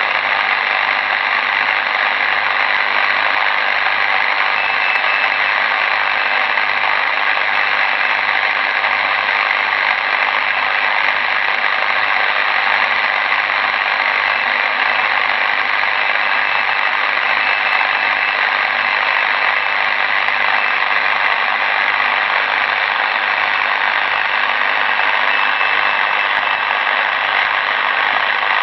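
Steady static hiss from a Tecsun PL-600 shortwave receiver's speaker, tuned to 3518 kHz in the 80-metre band in SSB mode, with a faint high whistle coming and going a few times. It is band noise picked up on an inverted-L antenna.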